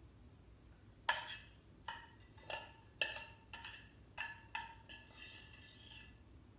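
A kitchen utensil knocking and scraping against the inside of a metal saucepan about eight times over five seconds, each knock leaving a short metallic ring, as melted chocolate and Wheaties mixture is scraped out of the pan.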